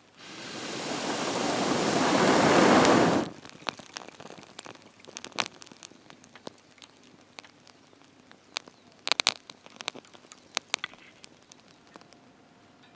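Water poured into a cooking pot: a rushing, splashing hiss that builds for about three seconds and stops abruptly. Scattered light clicks and clinks of cookware follow.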